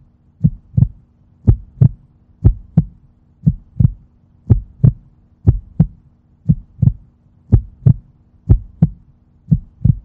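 Heartbeat sound effect: a double thump, lub-dub, about once a second, ten beats in all, over a faint steady hum.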